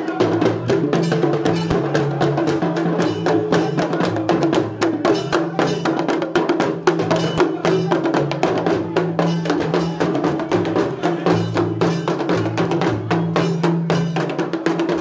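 Percussion music: rapid drum and bell strokes, several a second, running over steady low tones.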